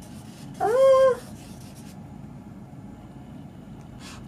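Alcohol marker nib rubbing and scribbling on sketchbook paper, with one short, high-pitched squeak about half a second in.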